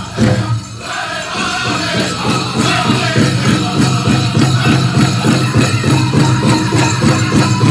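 Powwow drum group singing over a big drum. After a short lull near the start, the drumming settles into a fast, even beat and builds in loudness.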